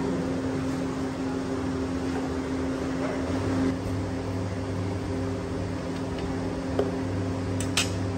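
Steady hum of a running electric motor, holding one pitch, with two light clicks about a second apart near the end.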